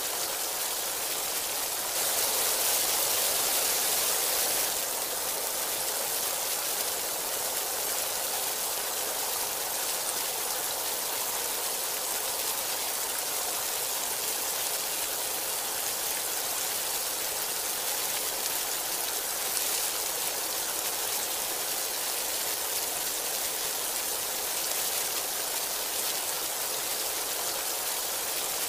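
Heavy rain pouring steadily, a dense even hiss of water, with a louder stretch of a few seconds starting about two seconds in.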